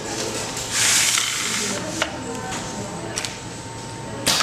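Clear plastic sewing template slid by hand across a metal machine table: a hissing scrape about a second in, then a few sharp plastic clicks. A low machine hum runs underneath.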